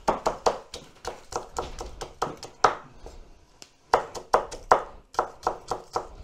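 Dimpled-blade kitchen knife chopping onion on a wooden cutting board: a fast run of sharp knocks, about five a second, that stops for about a second near the middle and then starts again.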